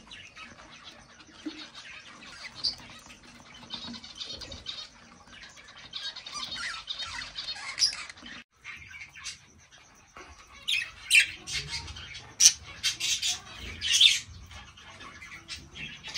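Budgerigars chirping and chattering, with a run of loud, harsh squawks a few seconds from the end.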